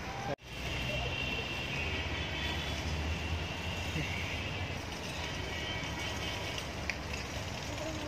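Steady outdoor background noise with a low rumble and faint high twittering, which cuts out for a split second just after the start. A single sharp click comes about seven seconds in.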